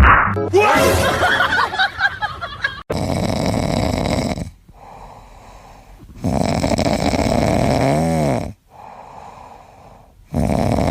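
A pet snoring loudly in a slow rhythm: three long snores about three and a half seconds apart, with quieter breaths between. A short, sudden burst of sound with wavering pitch comes just before the first snore.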